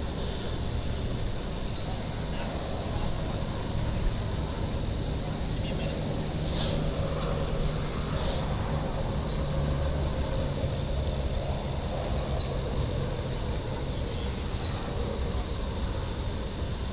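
Steady low outdoor rumble with faint, high insect chirps repeating a few times a second.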